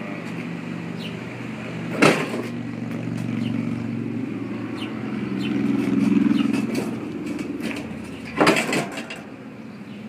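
A motor vehicle's engine running steadily with a low hum that swells around the middle. Two loud clunks come about two seconds in and again near the end as the refrigerator is tipped and moved on the hand truck.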